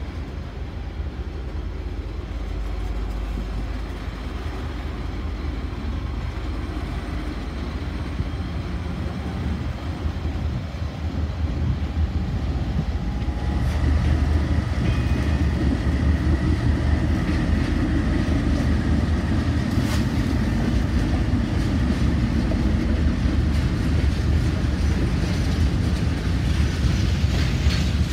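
The Capital Connection, a diesel-hauled passenger train, moving along the platform with a steady low rumble of engine and wheels. It grows louder about halfway through.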